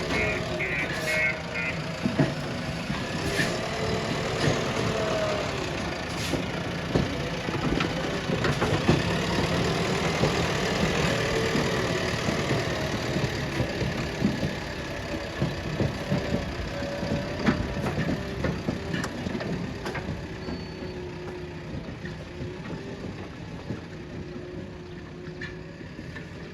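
Diesel engine of a JCB 3DX backhoe loader running under varying load, with scattered metal knocks and clanks. A reversing alarm beeps rapidly for the first two seconds. The engine sound fades near the end.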